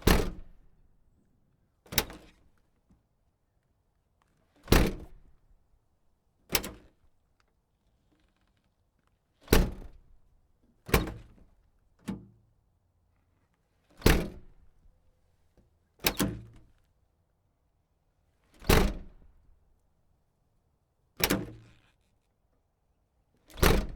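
SUV door opened and shut over and over: about a dozen sharp, solid thunks of the latch and door slamming, spaced one to three seconds apart, each dying away quickly.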